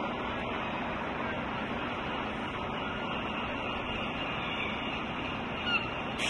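Steady hum of idling double-decker buses and street traffic. A short seagull call comes near the end.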